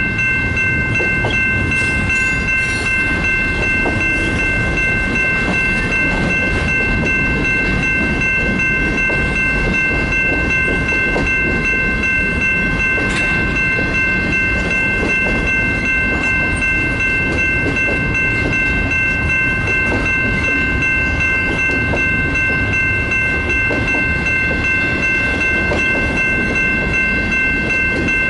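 Double-stack intermodal freight train's cars rolling past: a steady rumble of steel wheels on rail, with a steady high-pitched whine of several held tones over it.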